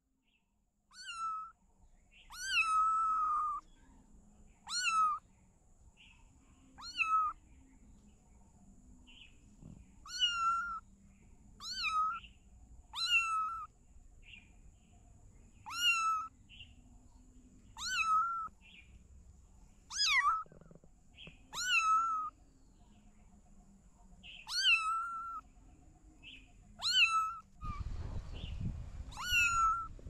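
Two-month-old kitten meowing over and over, short high-pitched calls about every one to two seconds. A low rumbling noise comes in near the end.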